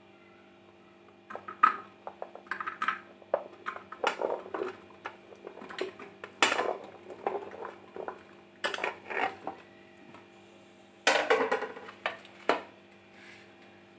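Chopped pumpkin and gourd pieces being tipped and pushed from a plate into an aluminium pressure cooker: a run of uneven knocks and clatters against the metal pot and the plate, starting about a second in and stopping a little before the end.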